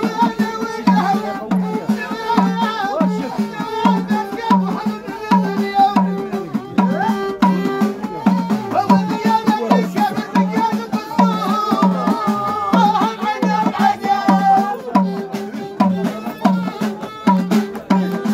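Live Moroccan folk music: small hand drums, clay and frame drums, beat a steady rhythm of about two beats a second under a wavering melody line.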